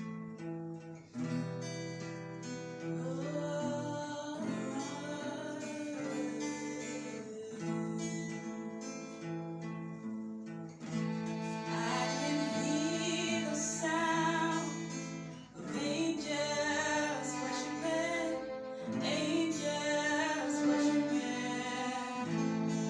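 Worship song intro: acoustic guitar strumming chords, with a violin playing a gliding melody over it. The music grows fuller and brighter about halfway through.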